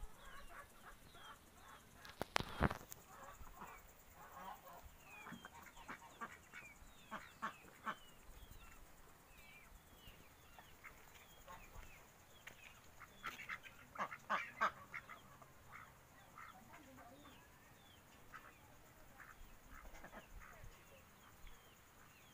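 Domestic waterfowl of a poultry flock calling in rapid bursts, loudest about two to three seconds in and again around fourteen seconds. Small birds chirp throughout.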